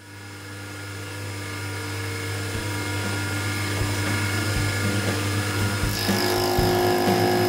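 Milling machine spindle running a homemade two-insert carbide dovetail cutter through aluminium: a steady hum and whine that fades in, with a louder, higher ringing joining about six seconds in. The cut runs without chatter now that the carbide inserts' sides have been ground for more relief angle.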